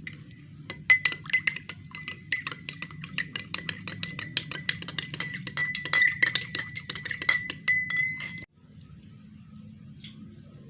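Metal spoon stirring a drink in a glass, clinking rapidly against the sides with the glass ringing, then stopping abruptly.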